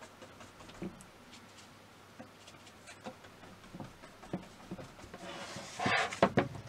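Soft, scattered taps and rubbing from handling a stretched painting canvas on a table, then near the end a louder burst of scraping followed by a few sharp knocks as the canvas is slid and picked up.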